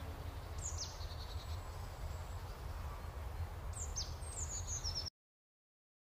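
Small birds chirping in short bursts of quick, high, downward-sliding calls, about a second in and again near the end, over a low steady rumble of outdoor noise. The sound cuts off suddenly about five seconds in.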